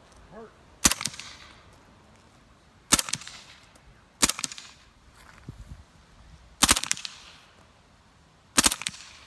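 Five single gunshots from a magazine-fed firearm, fired one at a time at irregular intervals, each with a short echo tail.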